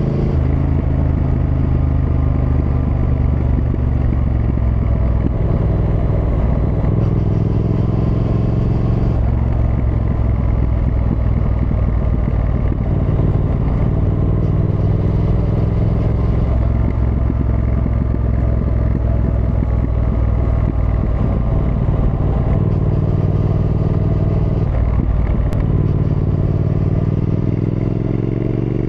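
Triumph Thruxton R's 1200 cc parallel-twin engine under way. Its note holds steady for stretches, changes pitch a few times through the middle, and climbs near the end as the bike accelerates.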